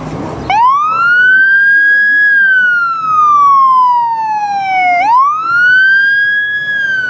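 Fire engine's siren starts about half a second in and wails in two slow cycles. Each cycle rises quickly, holds at the top, then falls slowly. The engine is responding to an emergency call.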